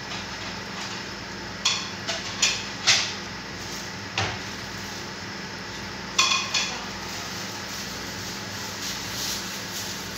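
A metal utensil clinks sharply against a cooking pot: a run of four clinks about two seconds in, a single one near four seconds, and a quick three about six seconds in. A steady hiss and a low hum run underneath.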